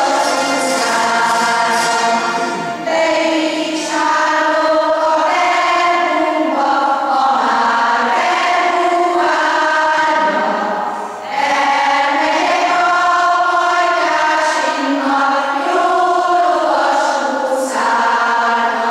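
A choir of children and older women singing a slow song in phrases, with a citera (Hungarian zither) ensemble playing along at the start.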